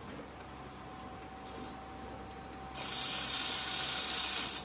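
Handheld fiber laser welder with wire feed welding a steel bar, giving a loud hiss: a short burst about a second and a half in, then a steady pass of about two seconds near the end.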